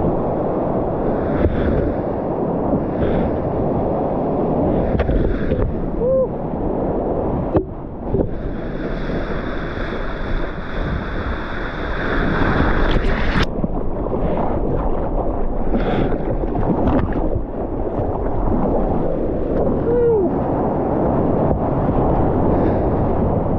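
Wind buffeting an action camera's microphone over the rush of breaking whitewater as a surfboard rides through it, a dense, steady noise. A brighter hiss joins in for a few seconds in the middle and cuts off suddenly.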